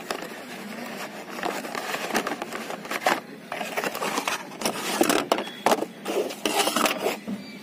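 Cardboard product boxes being handled: irregular scraping and rustling with short knocks, busiest in the second half.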